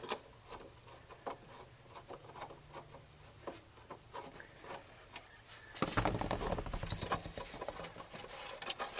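Light scattered clicks and rubbing, then louder, denser rubbing and handling noise from about six seconds in.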